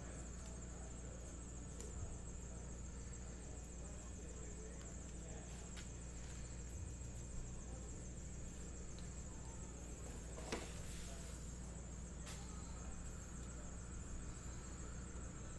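Low-level room tone: a steady high-pitched whine and a low hum, with a few faint clicks and rustles from trading cards being handled.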